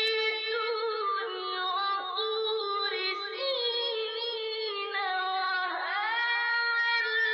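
Vocal music: a single high voice singing a slow melody in long, held, wavering notes.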